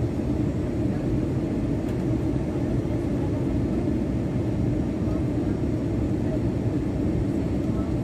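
Steady low rumble of a Boeing 737's jet engines and rushing air, heard from inside the passenger cabin during the landing.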